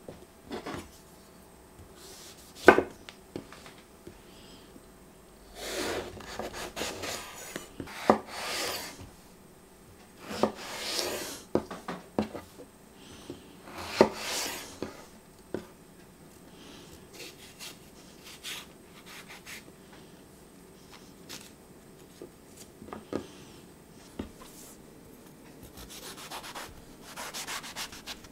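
Knife cutting through aubergine on a wooden chopping board. Several drawn-out slicing strokes of about a second each, with a few sharp knocks of the blade on the board, then softer scraping as the skin is pared away.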